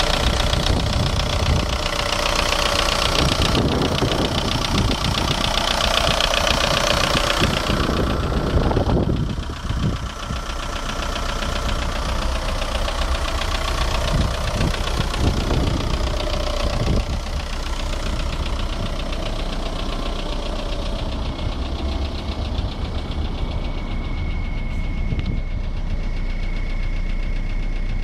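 VW 1.9 TDI (ASV) four-cylinder diesel engine running with a knock that the owner traced to the bottom end, cause never found. It is louder and fuller for roughly the first nine seconds, then settles quieter and steadier.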